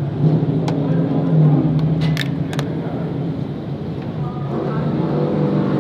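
Steady drone of race-car engines running on the track, with a few sharp clicks in the first few seconds and faint voices near the end.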